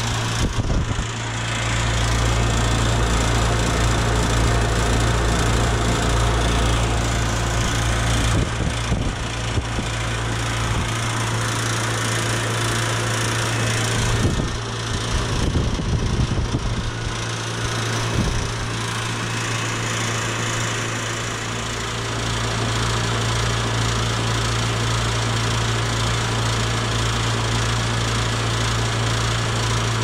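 2003 Trane XB1000 central air conditioner's outdoor condensing unit running: a steady electrical hum from the compressor under the whoosh of the condenser fan.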